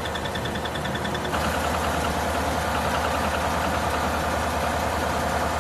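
GMC engine idling with a rapid, steady ticking from its failing lifters (lifter tick). It gets a little louder about a second and a half in.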